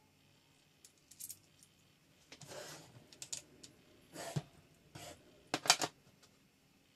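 Small metal parts and tools being handled during installation of a rifle folding stock adapter: scattered clicks and short scraping rubs, with the loudest cluster of clicks about a second before the end.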